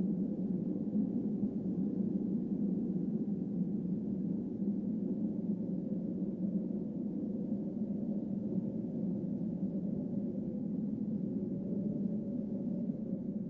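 Ambient drone soundtrack: a steady low drone of several layered sustained tones, with no beat or melody.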